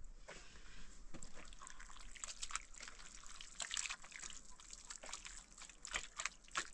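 Liquid trickling and dripping, with many small irregular clicks and splashes.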